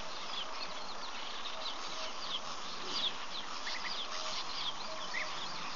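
Wild birds chirping: many short, quick, falling high calls overlapping one another, with a few brief lower notes, over a steady background hiss.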